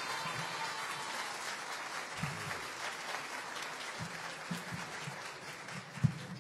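An audience applauding, the clapping thinning out and dying away near the end.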